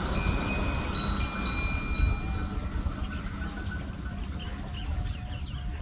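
Bull-driven Persian wheel (rehat) at work: several high, ringing metallic tones over a steady low rumble. The ringing fades away about halfway through.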